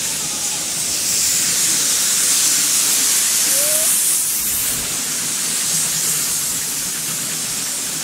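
Steam hissing steadily from a scale Fowler Super BA ploughing engine standing in steam, with no chuff of the cylinders. The hiss swells a little about a second in and eases again past the middle.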